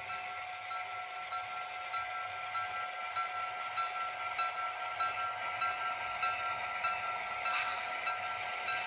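HO scale model diesel locomotives and freight cars running on the layout track. A steady whine is heard with light regular clicks from the wheels on the rails, and it grows slightly louder as the train passes close.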